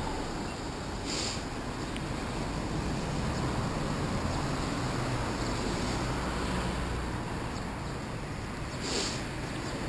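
Wind rushing over the microphone of a camera on a moving bicycle, mixed with the rumble of road traffic. Two brief hisses stand out, about a second in and near the end.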